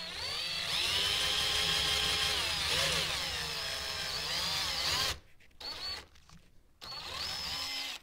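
Electric drill boring a bolt hole through a homemade intake gasket into a wood block: a motor whine for about five seconds that dips in pitch twice under load, then two short bursts near the end.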